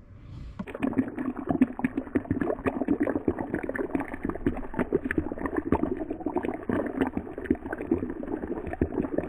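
Coffee maker bubbling and gurgling as it brews, a dense, irregular run of crackling pops that starts about half a second in and keeps on steadily.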